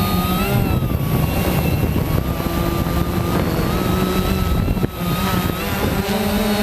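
Quanum Nova quadcopter's electric motors and propellers whining in flight, the pitch wavering up and down with throttle changes over wind rumble, with a brief drop about five seconds in.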